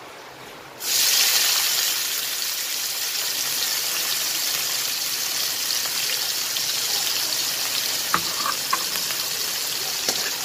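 Chopped red onion hitting hot oil in a wok, starting to sizzle abruptly about a second in and then sizzling steadily. Near the end a metal spatula starts stirring, with a few light scrapes and clicks against the wok.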